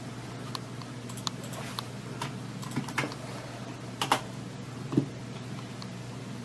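Scattered clicks of a computer keyboard and mouse as a web address is pasted into a browser and entered. A few louder clicks come about three, four and five seconds in, over a low steady hum.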